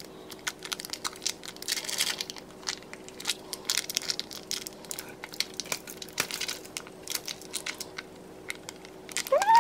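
Foil wrapper of a block of cream cheese crinkling and crackling as it is squeezed and peeled away one-handed, with irregular sharp clicks.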